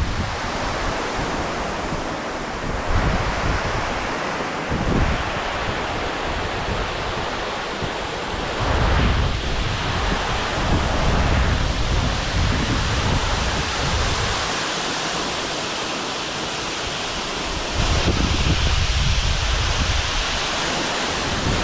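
A waterfall rushing in a steady roar, with wind buffeting the microphone in low gusts every few seconds.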